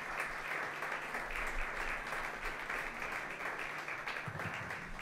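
Audience applauding steadily: many hands clapping in a small room.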